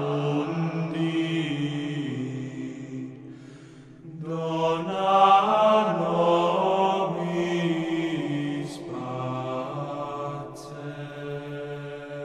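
Slow, chant-like sung vocal music with long held notes over a steady low drone; it grows quiet about three to four seconds in, then swells back up.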